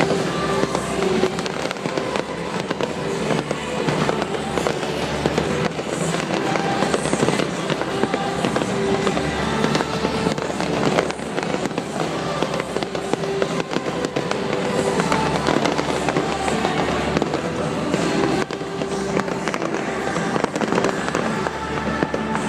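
Fireworks bursting and crackling in rapid, continuous succession, heard over music that accompanies the display.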